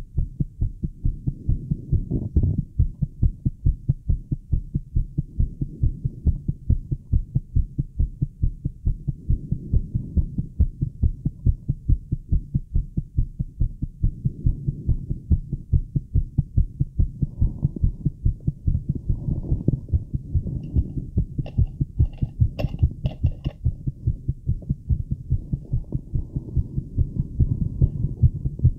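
Fast heartbeat heard through a Littmann stethoscope on the chest, an even run of low thumps racing at about 135 to 140 beats a minute. A few brief clicks cut in about three-quarters of the way through.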